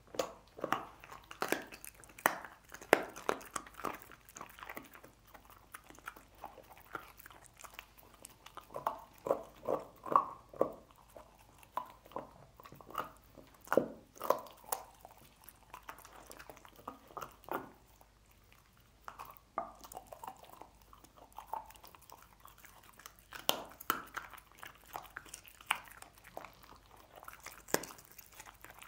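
A dog chewing and crunching on cooked pork bones: irregular runs of sharp bites and crunches, with a few quieter seconds a little past the middle.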